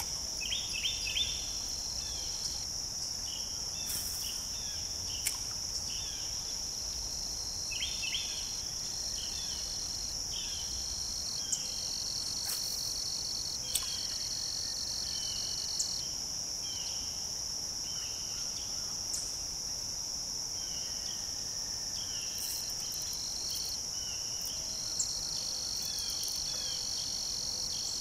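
A steady, high-pitched drone of a summer insect chorus, with a second, lower insect trill switching on and off every few seconds. Many short falling chirps come and go throughout, and a few sharp clicks stand out.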